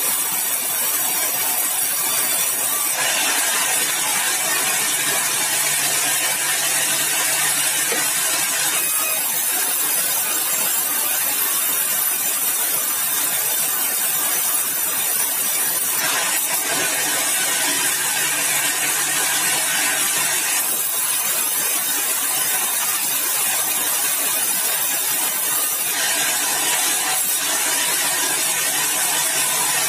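Sawmill blade running and cutting through yellow balau (bengkirai) timber as a steady, loud, hissing noise that turns harsher in three stretches of several seconds each.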